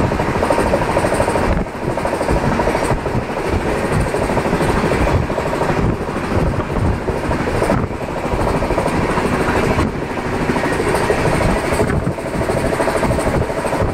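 LHB passenger coach running at high speed, heard from its open doorway: a loud, steady rumble and rush of wheels on rail that dips briefly every couple of seconds.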